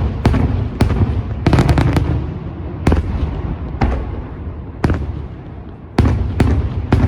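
Daylight fireworks display: sharp aerial firework bangs over a rolling low rumble, with a quick cluster about one and a half seconds in. After that come single bangs about a second apart, then a short lull, and a rapid volley starts about six seconds in.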